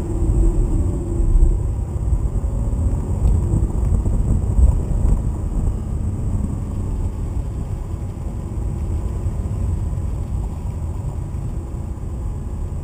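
Lamborghini Gallardo LP 560-4's V10 engine running steadily, heard from inside the cabin as a low rumble mixed with road noise, a little stronger in the first few seconds and easing off slightly toward the end.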